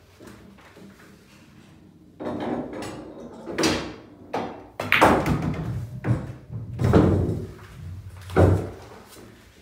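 Pool cue shot and balls knocking on a coin-operated bar pool table: a series of heavy thuds and clacks, about one every second or so, as an object ball is pocketed in the side pocket and balls drop and roll down the table's internal ball-return track.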